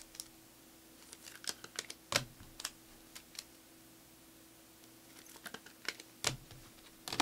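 Trading cards and packs being handled on a table: scattered light clicks and taps at an uneven pace, over a faint steady hum.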